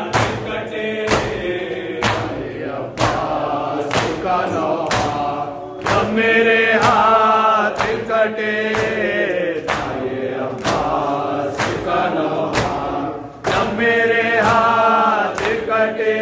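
Men chanting a nauha, a Shia lament, in chorus, with sharp slaps of chest-beating (matam) keeping an even beat about twice a second.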